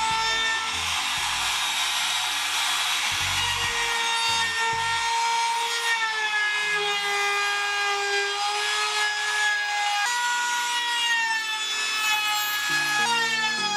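Trim router running with its bearing-guided bit cutting along the edge of a wooden board: a steady high motor whine over the hiss of the cut. The pitch shifts slightly and abruptly a few times.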